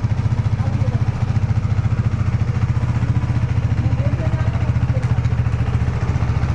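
Honda Aviator scooter's single-cylinder four-stroke engine idling steadily through its newly fitted silencer, a quick, even exhaust pulse.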